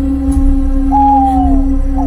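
Eerie horror ambience: a steady low drone under a single long wail that starts about halfway through and slides slowly down in pitch, made as a ghost's cry.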